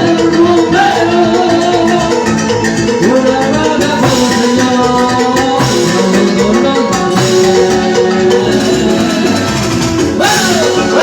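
Latin tropical dance music in an instrumental passage: a melodic lead of held and gliding notes over percussion with a steady beat.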